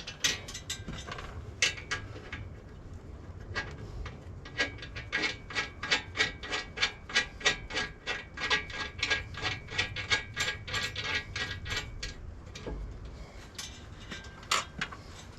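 Ratchet wrench clicking in quick, even strokes, about four clicks a second, as the hitch's mounting nuts are loosely run down on their bolts.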